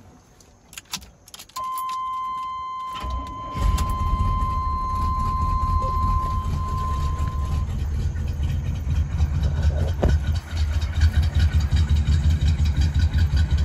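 A few clicks, then a steady dashboard warning tone sounds for about six seconds while the 1989 Chevy V3500's carbureted 454 big-block V8 cranks briefly and catches about three and a half seconds in. The engine then settles into a steady idle that continues to the end.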